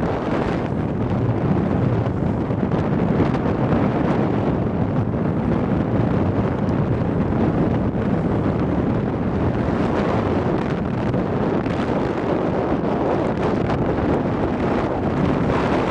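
Strong wind buffeting the microphone with a steady rushing roar, over water noise from the sailboat moving through choppy sea.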